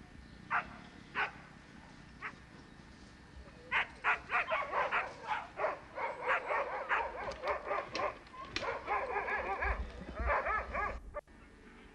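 Dogs barking and yelping: a few single barks, then from about four seconds in a rapid, overlapping run of barks from several dogs, cut off abruptly near the end.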